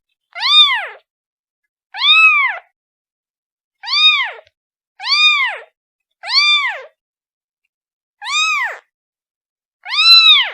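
Kitten meowing to call its mother: seven high, separate meows, each rising and then falling in pitch, spaced one to two seconds apart.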